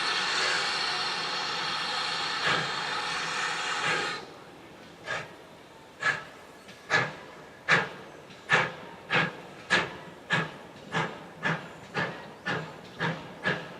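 GWR 57xx pannier tank steam locomotive: a steady hiss of escaping steam that stops suddenly about four seconds in, then the chuffs of its exhaust as it starts away, slow at first and quickening to two or three beats a second as it gathers speed.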